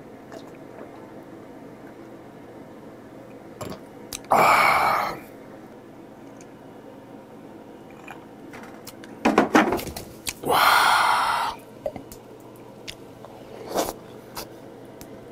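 Two loud breathy exhales of about a second each, a man sighing out between gulps of a whisky highball, about four seconds in and again some six seconds later, with a few light knocks in between.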